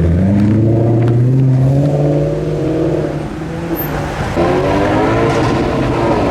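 A sports car engine revving twice. The pitch climbs and holds high for about three seconds, drops back, then climbs and holds again.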